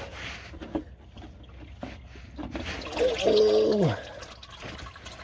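Warm motor oil draining and trickling from the engine into a drain pan, with scattered small knocks. About three seconds in, a man's drawn-out vocal groan falls in pitch for about a second.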